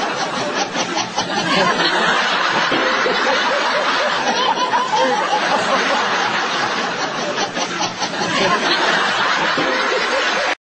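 Steady crowd noise from a football match broadcast, with laughter over it.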